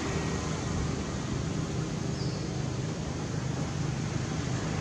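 Steady outdoor background noise: a constant low hum under an even hiss, with no distinct events.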